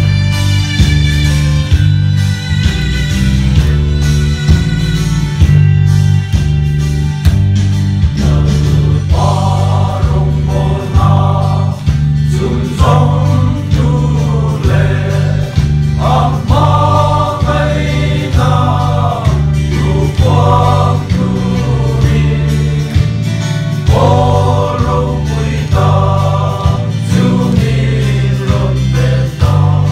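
A group of men singing a Mizo gospel hymn together over instrumental accompaniment with a steady deep bass line. The massed voices come in strongly about nine seconds in.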